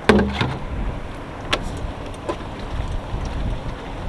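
A single heavy thud as a large plastic water jug is set down on the sailboat's deck, followed by a few light knocks, over a steady rumble of wind and water.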